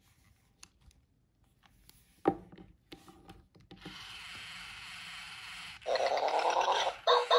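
Hasbro i-Dog robot toy handled, with light clicks and one sharp knock. Its speaker then comes on with a steady hiss, and about six seconds in it plays a loud electronic sound lasting about a second, followed near the end by two short beeps.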